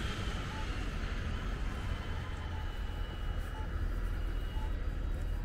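Steady low rumble of downtown street traffic, with a faint tyre hiss on wet pavement fading away near the start.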